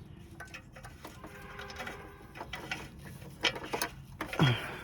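Light metallic clicks and rattles as a new oxygen sensor is handled and fitted into place.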